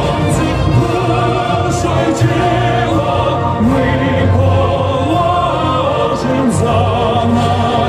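Music with a choir singing long, held notes over a steady accompaniment.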